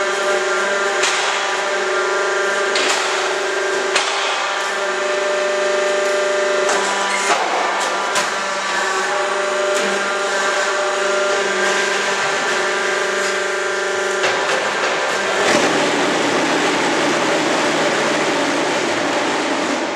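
QFT5-20 semi-automatic hydraulic concrete block machine running through its cycle: a steady hydraulic whine with sharp metal clanks and knocks of the mould and pallets. About three-quarters of the way through the whine gives way to a harsher, noisier buzz with a lower hum.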